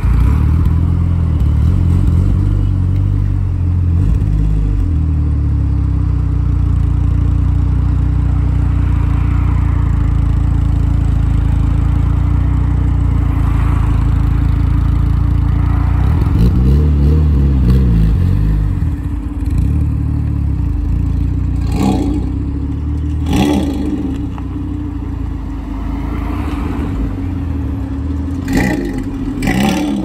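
Mitsubishi Lancer Evolution VII and Lotus Elise engines idling with a steady, deep exhaust rumble. A little past halfway an engine revs up and down briefly. After that the rumble drops, and several sharp cracks come near the end.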